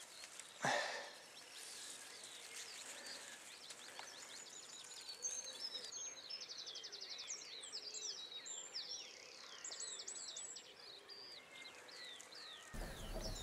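Faint songbirds singing, with quick high trills and short down-slurred chirps, after a single brief knock about a second in.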